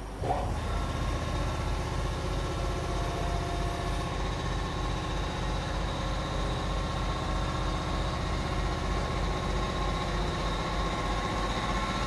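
Feed mill machinery running: a steady low hum with a fast even pulse and a faint steady whine above it.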